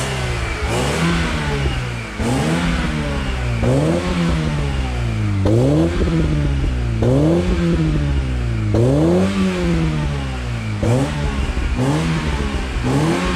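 Alfa Romeo 146 ti's 2.0 Twin Spark four-cylinder engine being blipped at the tailpipes, repeated quick revs about every second and a half, each rising sharply and falling back to idle. It is breathing through a freshly fitted exhaust with the catalytic converter removed.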